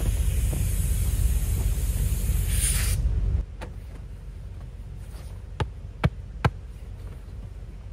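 A loud steady hiss with a low rumble under it, cutting off sharply about three seconds in. Then a few sharp clicks and knocks as the driver's door of a Lexus GX470 is opened and someone climbs in.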